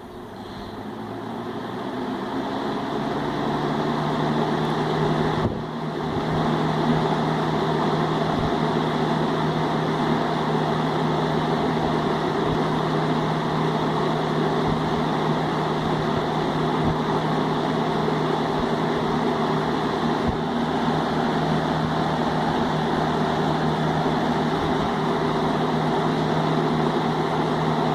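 Vintage Hoover E1502 box fan, its two-speed McMillan motor wired to run on high, switched on and spinning up over the first few seconds, then running steadily: an even rush of air over a steady low motor hum.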